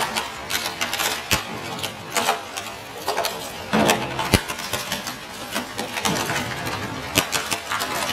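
Twin-shaft industrial shredder's cutter discs crunching up an LED light bar, with irregular sharp cracks of breaking plastic over a continuous rattle of fragments. One crack about four seconds in is the loudest.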